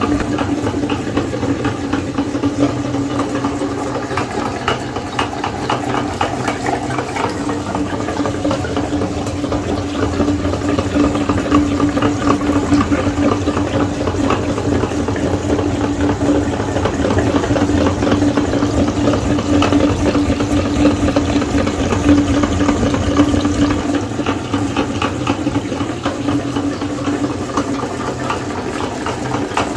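Electric meat grinder running with a steady motor hum, grinding soft jelly candy with a continuous wet, crackling squelch.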